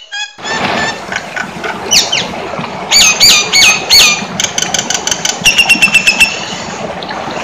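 A jalak nias, a myna, calling loudly: a quick sweeping whistle, then four calls that each slide sharply down in pitch, then a fast run of about a dozen short sharp notes, over a steady hiss.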